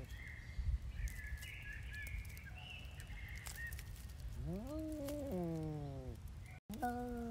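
A cat's drawn-out warning yowl, rising, held, then falling away, starting a little past halfway; a second yowl begins just before the end. Small birds chirp faintly in the first half.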